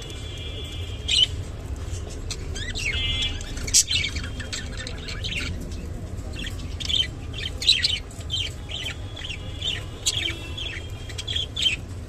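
Budgerigars chirping and warbling: a string of short, sharp chirps with a few rapid trills, irregularly spaced, over a low steady background hum.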